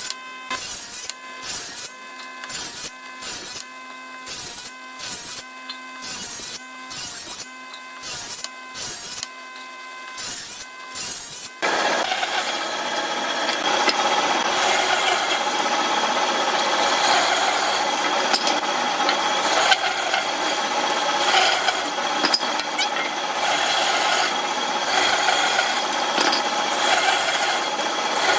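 Woodworking tool noise on wood. It begins as about a dozen seconds of evenly repeated strokes, roughly two a second, each with a pitched ring. Then it switches abruptly to a continuous, rougher power-tool noise with a faint high whine.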